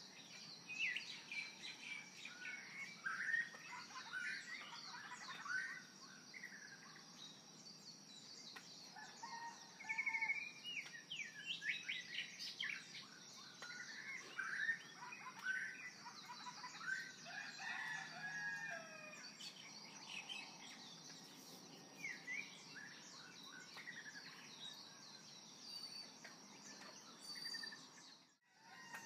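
Many birds chirping and singing, short chirps and gliding whistles overlapping, over a steady high-pitched whine. The sound cuts out briefly near the end.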